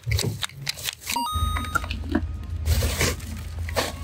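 A short, bright electronic beep about a second in, over the low steady rumble of a car cabin and the rustle of a paper bag and plastic chocolate wrapping.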